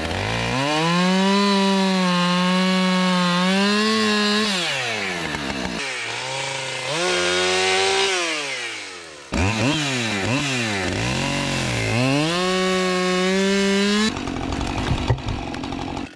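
Husqvarna two-stroke chainsaws running at high revs, cutting wood, in several short clips that cut abruptly from one to the next. The engine pitch falls as the throttle is let off and climbs again when revved. The last couple of seconds are a rougher stretch with a few sharp knocks.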